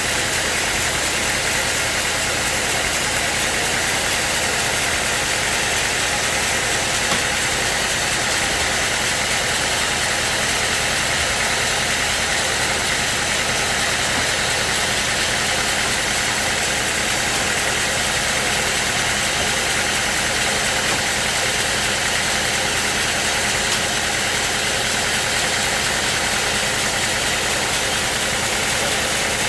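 Sawmill machinery running steadily: an engine sound at an even level with no breaks or changes.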